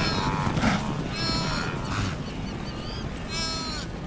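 Two drawn-out bleating animal calls, about a second in and again near the end, each falling in pitch as it ends, over a low rumble.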